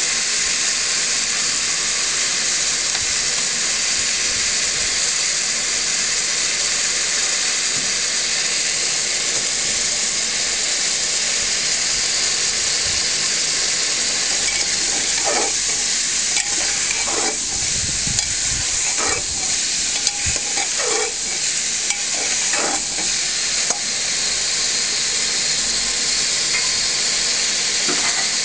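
Chicken and onions sizzling as they fry in an open aluminium pressure cooker, with a steel ladle scraping and knocking against the pot several times in the middle.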